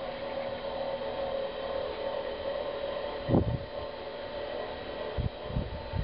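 Steady mechanical hum with a held tone from the heat pump plant room's running machinery. A loud low thump comes about halfway through, and two softer ones follow near the end.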